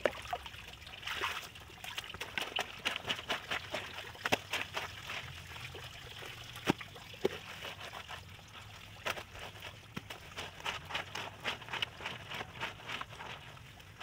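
Wet clothes being scrubbed by hand with a bar of laundry soap on a concrete washboard: quick runs of short wet rubbing strokes, with a brief lull a little past halfway.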